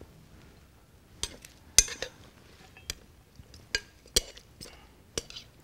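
Light, irregular clinks and taps, about seven of them, as a glass mixing bowl and utensils knock against a ceramic serving plate while dressed salad is tipped out of the bowl.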